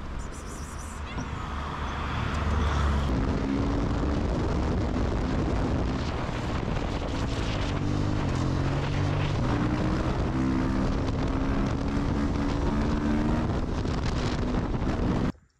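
Motorcycle engine running while riding, its note stepping up and down several times, with wind buffeting the microphone. The sound cuts off abruptly near the end.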